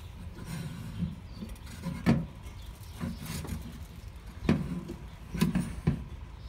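Stainless steel folding chafing dish stand being handled and set down on a table, giving several knocks and clanks of metal, the loudest about two seconds in and a cluster near the end.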